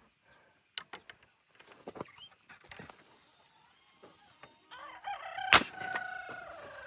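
A rooster crowing, one long drawn-out call that starts about two thirds of the way in and falls slowly in pitch. A single sharp crack cuts through the middle of the crow, after a few seconds of scattered light clicks and knocks.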